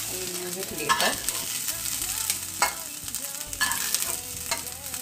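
Baby corn sizzling in hot oil in a nonstick kadai while a spatula stirs it and scoops it out, with a handful of sharp scrapes and knocks of the spatula against the pan.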